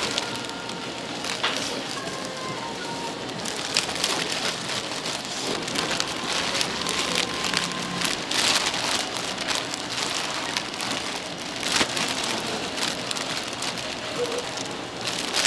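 Fish cakes deep-frying in hot oil: a steady sizzle dotted with many small pops.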